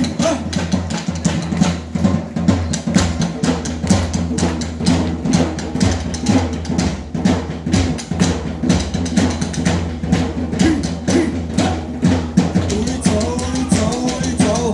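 Drum-heavy music with a fast, steady beat of many drum strikes, and a melodic line coming in near the end.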